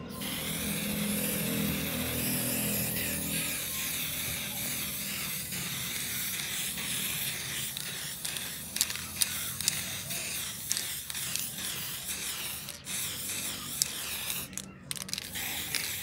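Aerosol spray paint can hissing steadily in long bursts, with two short breaks in the last few seconds. Sharp clicks come now and then in the second half.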